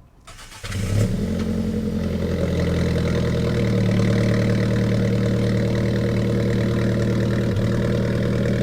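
Bone-stock Alfa Romeo 4C's 1.75-litre turbocharged four-cylinder cold-starting through its stock exhaust: a brief crank, the engine catches about a second in with a short flare, then settles into a steady idle.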